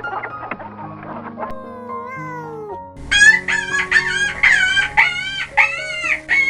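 Background music with a steady bed of notes. About halfway in, a small animal starts a fast run of about eight loud, high-pitched calls, each short and arched, after one softer falling call.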